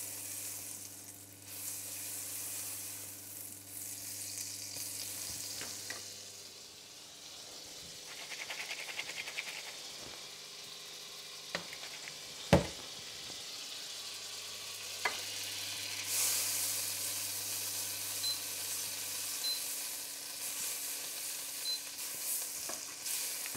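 Butter melting and sizzling in hot oil in a frying pan, a steady frying hiss. A few sharp clicks, the loudest a knock about halfway through, and a low steady hum comes and goes.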